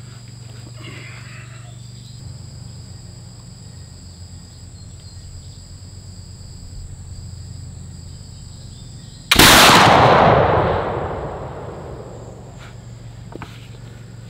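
A single black-powder shot from a .62 calibre flintlock smoothbore firing a patched round ball on an 85-grain charge of Goex 2F. It is a sudden loud report about nine seconds in that dies away over about two seconds, with crickets chirring steadily.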